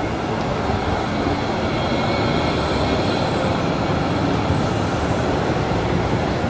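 Articulated tram rolling past on the near track, a steady rumble of wheels on rails and running gear. A brighter hiss joins about four and a half seconds in.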